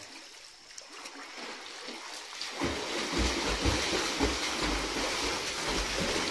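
Water splashing and sloshing as people move about in it, turning louder and rougher about two and a half seconds in.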